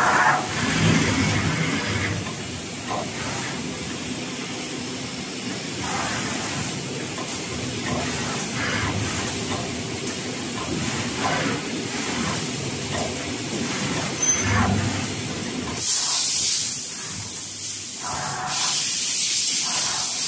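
Full-servo eight-colour pad printing machine running, its pneumatic air lines hissing in short bursts every two or three seconds. Two long, loud hisses of air come near the end.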